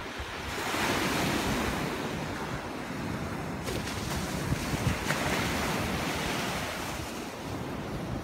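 Waves breaking and washing up a sandy beach, swelling about a second in and again around five seconds in, with wind on the microphone.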